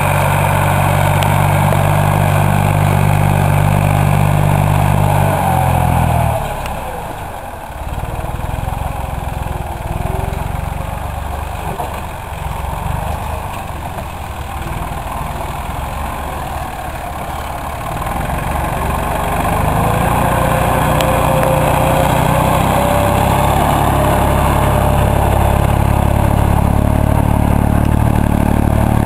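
Massey Ferguson tractor's diesel engine running under load as it pulls a mounted plow through the soil. It is steady and loud at first, drops quieter and rougher from about six seconds in, then comes back steady and louder at about nineteen seconds with a slowly rising whine.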